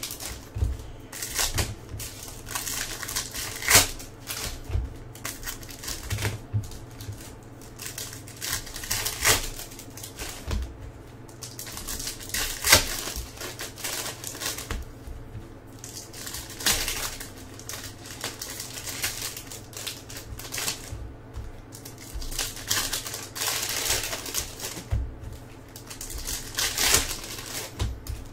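Foil Topps Chrome baseball card pack wrappers crinkling and tearing as packs are ripped open and handled, in repeated sharp crackling bursts every few seconds, with rustling of plastic wrap and cards between them.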